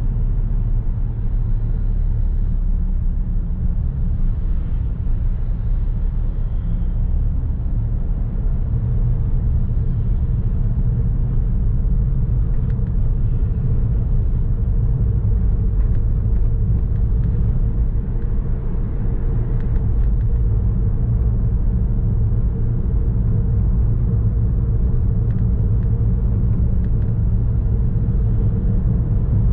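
Steady low rumble of a car driving along city streets: road and engine noise.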